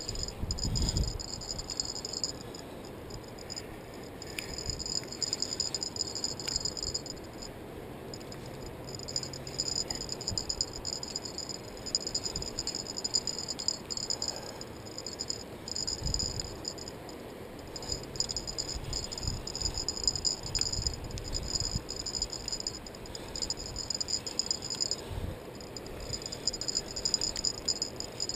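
Conventional level-wind fishing reel cranked under the load of a large fish, a high whir coming and going in stretches of a few seconds, with bumps of handling and wind on the body-worn camera.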